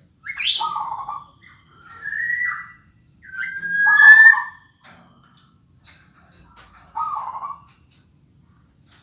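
Black-naped oriole giving its harsh, nasal whining calls (the 'rintihan' call), four times. The first call opens with a quick upward sweep. The loudest, about four seconds in, starts with a rising whistled note.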